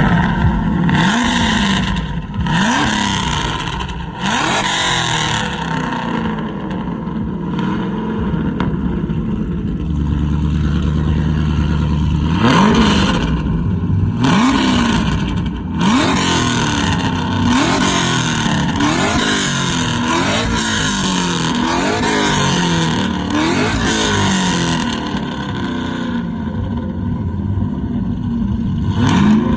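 Straight-piped 6.2-litre V8 exhaust being revved in repeated short blips, about one every second and a half. Around the middle it settles briefly to a steady idle before the blipping resumes.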